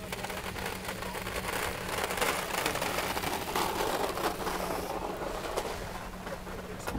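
Wind buffeting the microphone: a rough, crackly rushing noise with a steady low hum beneath it.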